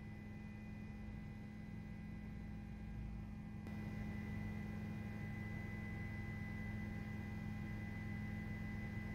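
Steady low hum with a few faint, steady high tones above it. It gets a little louder and brighter about three and a half seconds in.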